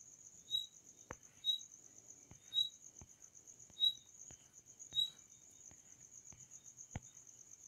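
Faint insect chirping: a steady high trill with a shorter chirp repeating about once a second, and a few faint clicks.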